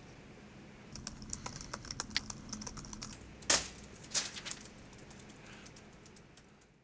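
Typing on a laptop keyboard: a run of quick key clicks, two of them louder, fading away near the end.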